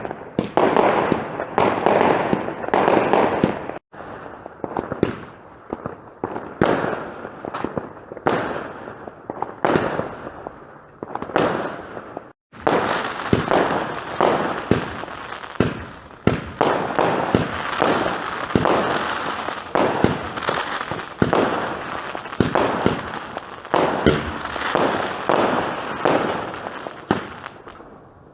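Consumer fireworks going off in a continuous, irregular barrage of bangs, pops and crackles, many reports overlapping, with two brief dropouts in the sound about 4 and 12 seconds in.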